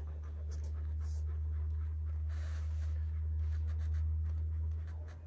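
A hand scratching and rubbing a young Kangal's coat on its neck and chest, with soft dog panting, over a steady low hum.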